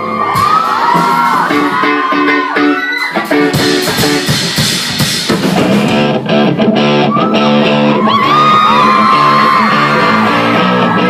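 Live pop-rock band playing a song with guitars and singing.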